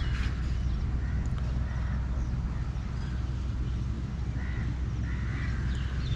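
Crows cawing now and then, short calls a second or so apart, over a steady low rumble of wind on the microphone.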